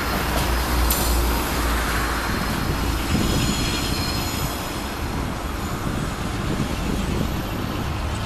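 SA/SD push-pull commuter train carriages rolling past and away on curving track, the wheels rumbling on the rails with a faint high flange squeal.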